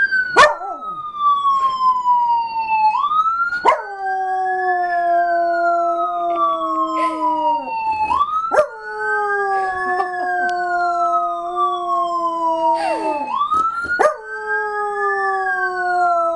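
Miniature schnauzer howling along to a played-back siren wail. The siren rises and falls about every five seconds, and the dog joins in with three long howls, each dropping in pitch at the end.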